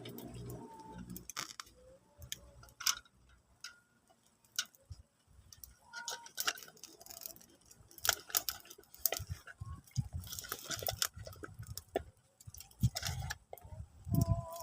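Irregular light clicks and clinks of small hard objects being handled, with a few brief ringing tones.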